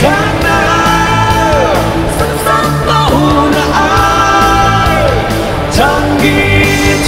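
A song with a band backing: a singer holds long notes, several ending in a downward slide in pitch.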